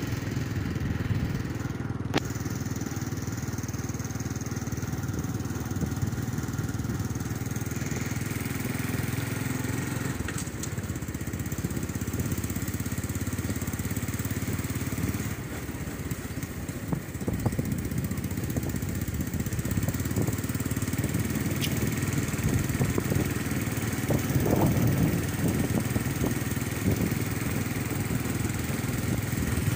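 Small motorcycle engine running steadily while riding. It eases off briefly about halfway through, then picks up again.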